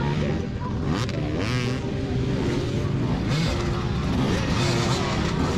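Enduro dirt-bike engines revving and blipping the throttle as a rider works the bike over a log obstacle, with a quick rising rev about a second and a half in.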